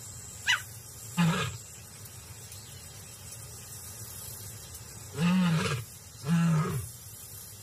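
Lion roaring in short grunting calls: one brief call about a second in, then two louder, deeper calls about a second apart near the end. A brief high chirp sounds just after the start.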